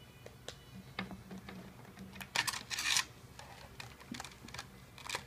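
Small objects being handled: a scatter of light clicks and taps, with two louder scraping rustles about two and a half and three seconds in.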